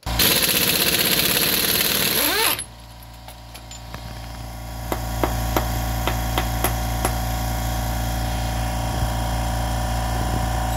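Pneumatic impact wrench hammering the rear axle nut off a Honda SCR110 scooter for about two and a half seconds, its pitch sliding as it stops. After that a steady low hum rises and holds, with a few light clicks.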